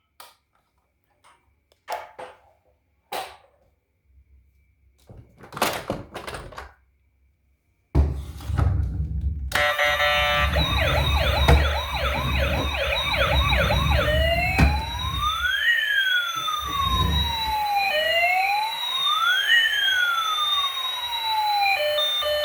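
A few scattered knocks and clicks, then a toy emergency vehicle's electronic siren over a low rumble from about ten seconds in. The siren starts as a fast warble and turns into a slow wail of two tones sweeping up and down past each other.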